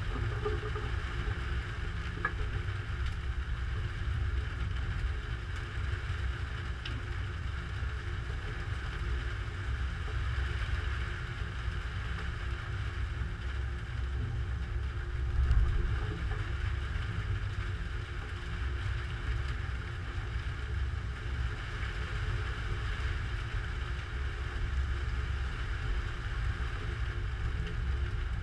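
Thunderstorm picked up by a GoPro Hero3 Black's microphone: a steady low rumble of wind and distant thunder, with one louder swell about halfway through.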